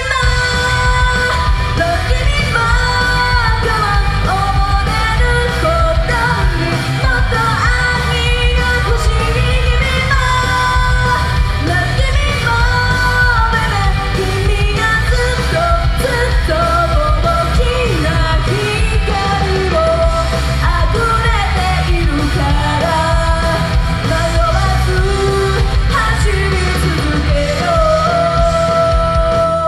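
A woman singing live into a handheld microphone over loud backing music with a heavy bass.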